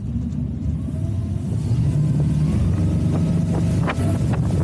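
MerCruiser 6.2-litre V8 (300 hp, Bravo 3 sterndrive) revving up under throttle, rising in pitch over the first couple of seconds and then holding a strong steady drone as the runabout accelerates onto plane. A few brief thumps or gusts come in near the end.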